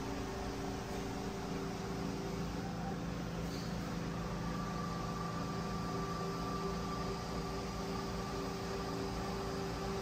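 Steady hum and whir of running machinery, with a faint higher steady tone joining about four seconds in.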